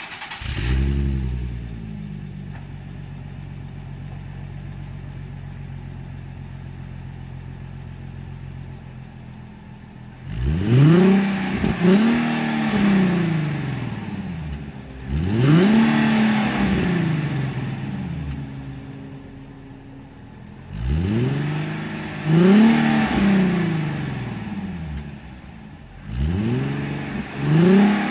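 2015 Nissan 370Z's 3.7-litre V6 running through an aftermarket cat-back exhaust: it catches and flares briefly, then settles to a steady idle. From about ten seconds in it is revved in a string of short blips, often two close together, each rising sharply and dropping back to idle.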